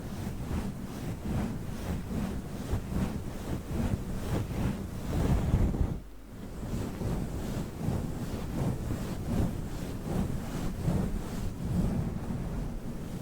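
Rubber witch-finger toy rubbing and brushing over a fluffy microphone windscreen, a muffled scratchy rustle in quick repeated strokes, with a short pause about six seconds in.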